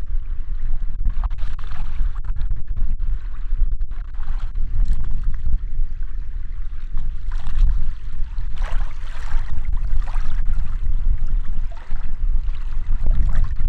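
Wind buffeting the microphone: a heavy, fluctuating low rumble, with scattered short clicks and brief rustling sounds over it.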